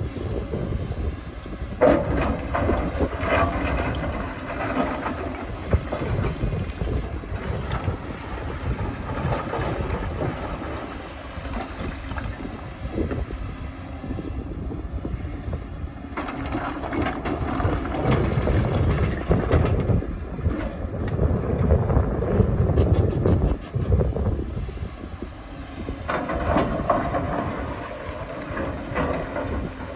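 Excavator working rock: the diesel engine runs under load, rising and falling, with scattered knocks and scraping of steel on rock as it digs rock out of the ground.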